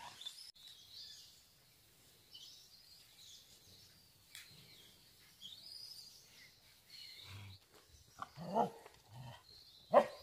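Faint birdsong, high chirps and calls scattered throughout. Near the end, a few short, louder barks from a dog.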